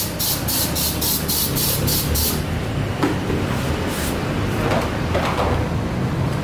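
Aerosol disinfectant spray can hissing in a quick series of short bursts, about four a second, for the first two seconds or so. The can is being sprayed over a cardboard box. After that comes faint rustling of cardboard over a steady low background hum.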